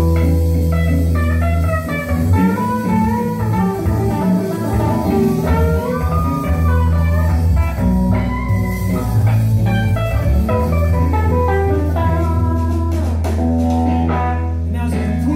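Live rock band playing an instrumental passage on electric guitars over bass and drums. A guitar line bends up and down in pitch over a steady, loud bass.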